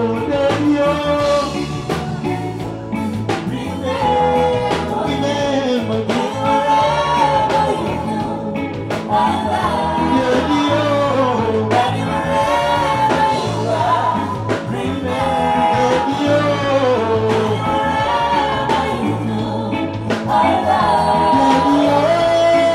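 A live band and singer performing a song at a sound check. The vocal line glides up and down over bass and drums.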